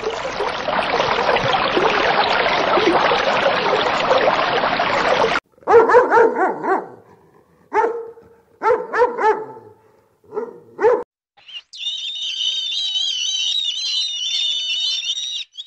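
A puppy barking and yipping in about six short bursts through the middle, set between a dense noisy stretch at the start and a high, wavering chirping near the end.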